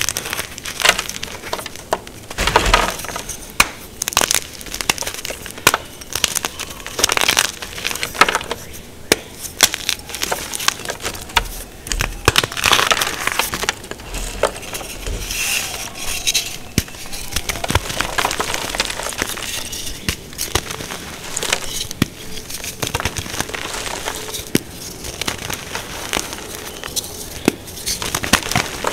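Blocks of gym chalk crushed and crumbled in the hands: a crunchy white chalk block giving dense, irregular dry crunches and crackles, then soft purple reformed chalk squeezed near the end.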